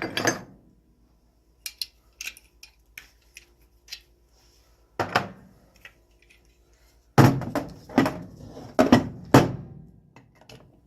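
Small lockpicking tools and parts being handled on a workbench: scattered light clicks, a single knock about five seconds in, then a run of five or so louder knocks and clacks about seven to nine seconds in.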